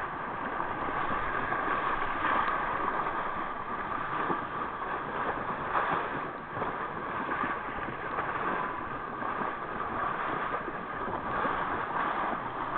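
Steady rush of water along the bow of a moving boat, with wind buffeting the microphone.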